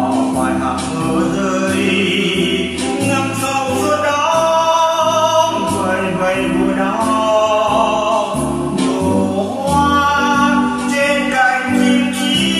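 A slow Vietnamese song: a singer's voice carrying a held, gliding melody over sustained keyboard chords and a stepping bass line.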